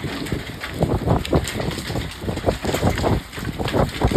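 Hailstones pelting down in a dense, irregular clatter of hard hits, with wind noise underneath.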